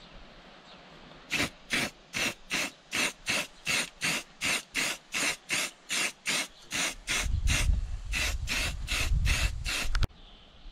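Aerosol spray-paint can spraying in short, rapid hissing bursts, about three a second, as engine shroud parts are painted. A low rumble sits under the last few bursts, and the spraying cuts off suddenly near the end.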